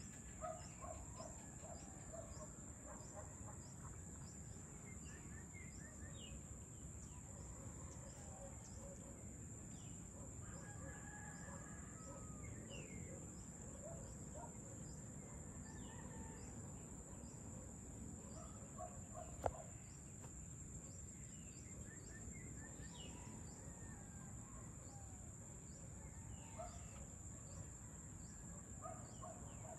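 Faint outdoor dusk ambience: a steady high-pitched insect drone with faint ticking, scattered bird chirps, and a rooster crowing somewhere about ten seconds in. A single sharp click comes near the two-thirds mark.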